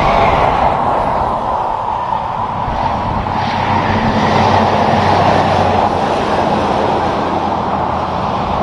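Freightliner Cascadia semi-truck passing at highway speed: steady tyre noise and diesel engine, swelling slightly as it goes by.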